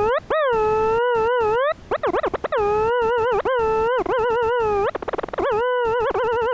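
Computer-generated tone from the Desmos graphing calculator: one mid-pitched tone that swoops, dips and wobbles up and down in pitch like a howl, broken by sudden short gaps, with a quick stutter about five seconds in.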